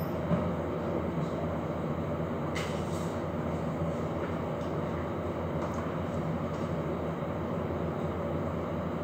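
Steady low mechanical hum of a kitchen appliance motor running. A light click comes about a third of a second in, as the countertop electric oven is shut.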